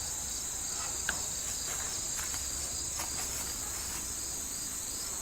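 Steady high-pitched insect chorus, a continuous shrill trilling, with a few faint soft ticks.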